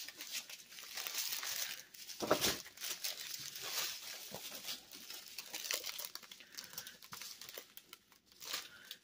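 Thin plastic packaging crinkling as a diamond-painting kit is handled: the clear film over the canvas and small zip bags of resin drills, with a louder crackle about two seconds in.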